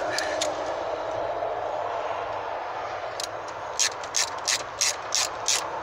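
Ratchet with a 10 mm socket tightening a car dashboard bolt. About three seconds in, a run of sharp pawl clicks starts, about three a second, over steady background construction noise.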